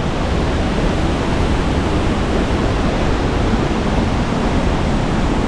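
Steady rushing of a waterfall and river water: a loud, even hiss and roar with no breaks.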